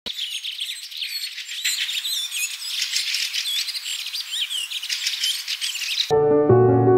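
Many small birds chirping and twittering together, a dense chorus of quick rising and falling calls. It cuts off suddenly about six seconds in, when electronic music with a steady bass line begins.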